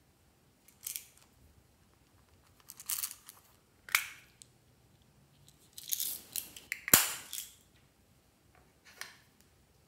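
Small plastic toy container handled and opened: a string of short plastic clicks and rattles from the container and the tiny plastic cube beads inside it, with a sharp click about seven seconds in as the loudest.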